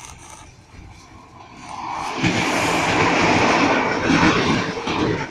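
Train running noise with wheel clatter on the rails. It swells up over about a second, stays loud for about three seconds, then cuts off abruptly near the end.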